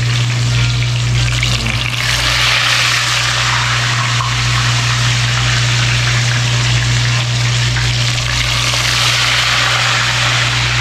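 Fish frying in a pot of hot oil: a steady sizzle that grows louder about two seconds in, over a steady low hum.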